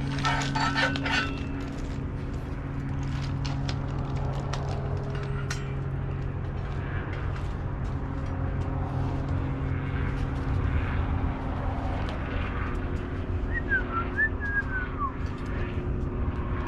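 Steady low motor hum, like an idling vehicle engine, with scattered sharp clicks, a cluster of them in the first second or so, and a short chirping whistle near the end.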